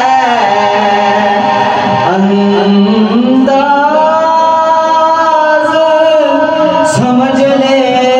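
A man singing a manqabat, an Urdu Islamic devotional song, into a microphone in long held notes with sliding ornaments.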